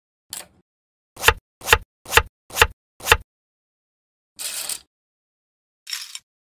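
Five sharp knocks on a wooden cutting board, about two a second, followed by a brief rustling clatter and a shorter, lighter one near the end.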